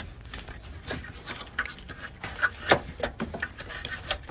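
Scattered clicks and rustles of hands working rubber hoses and plastic wire loom in a car engine bay, with one sharper knock a little before three seconds in.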